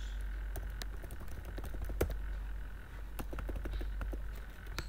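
Computer keyboard keystrokes: irregular, scattered key clicks as keys are pressed one at a time, over a low steady hum.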